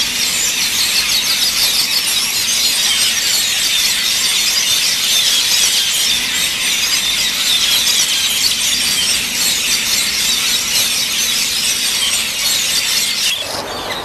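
A colony of metallic starlings calling all at once, a dense high-pitched chatter without pause. It stops suddenly near the end, where music comes in.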